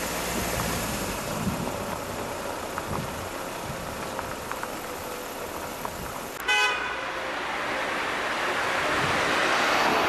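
Steady road and wind noise from a moving vehicle, with a single short car horn toot about six and a half seconds in; the noise swells toward the end.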